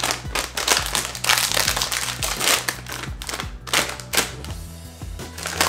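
Crinkly plastic snack bag being handled and torn open, a dense crackling for about four seconds, over background music.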